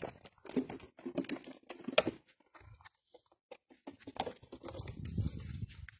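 Puppies play-fighting on a blanket: scuffling and rustling with scattered sharp clicks and knocks, the sharpest about two seconds in. A low rumble runs through the last second and a half.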